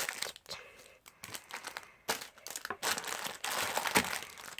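Plastic packaging crinkling and rustling in uneven bursts as stationery items are handled and packed back into their bag, with a sharp click near the end.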